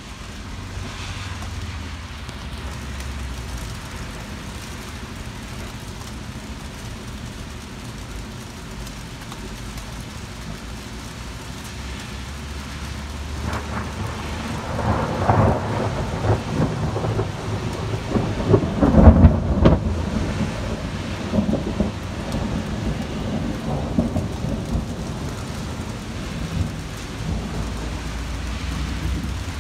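Heavy rain falling steadily, with a long rumble of thunder that builds from about halfway, is loudest about two-thirds of the way through, then rolls away.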